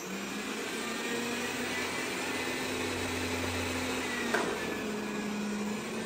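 Xiaomi Vacuum Mop Pro 2 Plus robot vacuum running, its suction fan and brushes whirring steadily as it drives from tile onto a rug, with one short click about four seconds in.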